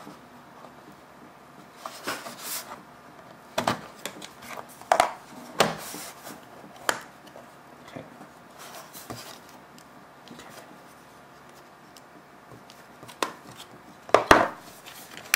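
Scattered clicks, scrapes and knocks of a LaCie Porsche Design external hard drive case being pried apart with a knife and putty knife, the metal shell and plastic end frame working loose. The loudest burst of knocks comes near the end.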